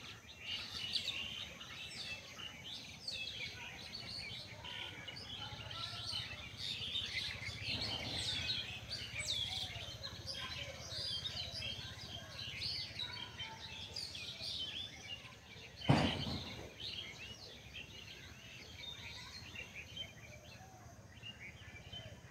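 Many small birds chirping and twittering without a break, over a low steady hum. A single sharp thump about two-thirds of the way through stands out as the loudest sound.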